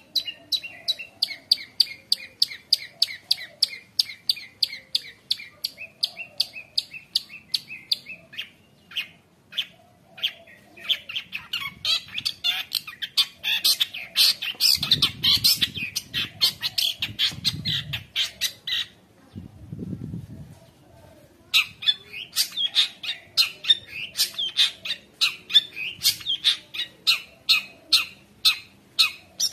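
Long-tailed shrike (cendet) singing in full voice: long runs of rapid, sharp repeated notes packed with imitated calls of other birds. The song breaks off twice, about 8 s in and again near 19–21 s. A few dull low thumps come in the middle.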